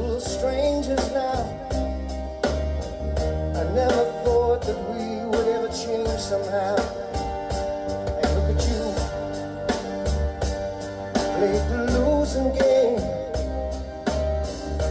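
A song with a singing voice, drums and a heavy, steady bass line, playing through the car's audio system in the cabin: a BMW 320d G20's factory speakers driven by an added Match DSP, heard during a listening test of the upgrade.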